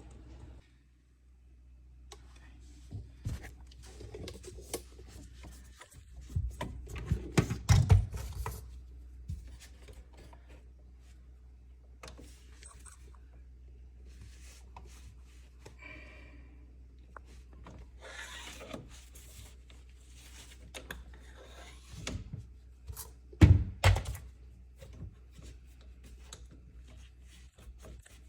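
Scattered knocks and thunks of handling, loudest in a cluster about six to nine seconds in and again near twenty-three seconds, over a steady low hum.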